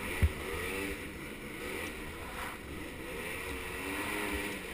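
Small 50cc ATV engine revving, its pitch rising and falling in several swells. There is one short low thump just after the start.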